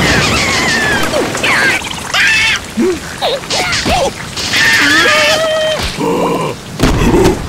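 Cartoon caterpillar voices: short, squawky, sliding cries and yelps in wordless gibberish, over the steady hiss of heavy rain. A deep, loud boom comes in near the end.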